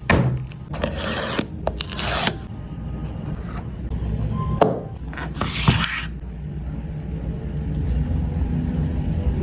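Cardboard and paper packaging of a phone box being handled: scraping and rubbing, with a few sharp clicks and three short scraping rushes about one, two and five and a half seconds in.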